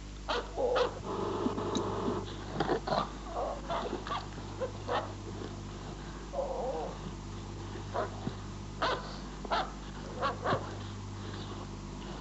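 Short dog-like yips and whimpers, scattered irregularly, with a longer wavering whine about halfway. Underneath runs a steady low hum.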